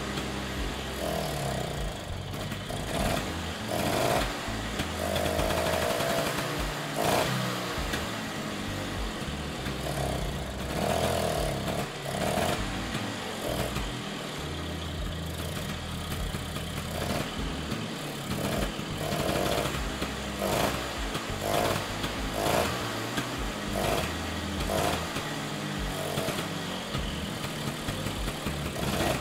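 Vintage Vespa's two-stroke single-cylinder engine running and being revved up and down in repeated swells, while carburettor cleaner is sprayed into its carburettor to clear carbon deposits.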